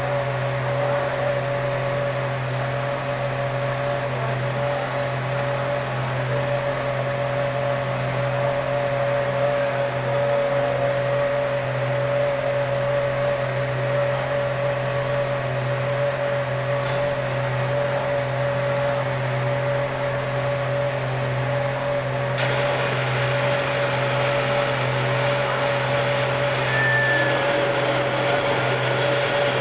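Engine lathe running, its boring tool cutting inside a copper-alloy ring: a steady motor hum with a constant whine. About three-quarters through, the sound turns brighter and a little louder.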